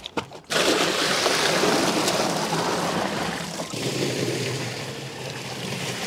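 Water poured in a steady stream from a large plastic water pot into the empty plastic liner of an old refrigerator cabinet, starting suddenly about half a second in, the gush turning a little deeper past the middle as the box begins to fill.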